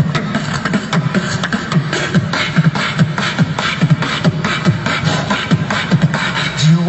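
Human beatboxing amplified through a handheld microphone and small portable amplifier: a fast, steady beat of low kick-drum thumps and sharp hi-hat and snare clicks made with the mouth.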